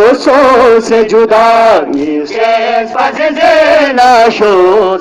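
Men chanting a noha, a Shia mourning lament in Balti, with a loud lead voice whose pitch rises and falls phrase by phrase.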